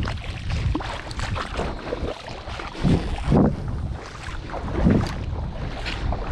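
Wind buffeting the microphone, a rough rumbling rush with stronger gusts about three and five seconds in.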